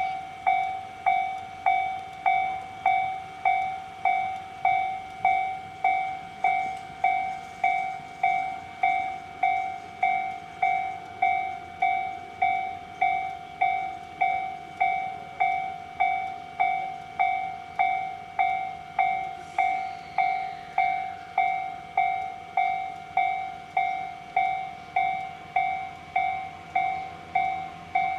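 Japanese level-crossing warning alarm ringing steadily, an electronic ding repeated about three times every two seconds. It sounds over the faint running noise of a train passing the crossing.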